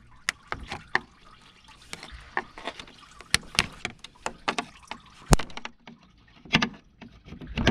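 Irregular sharp clicks and taps of a screwdriver prying plastic push clips and wire clips loose around a car radiator and its fan shroud. The sharpest click comes a little past five seconds in.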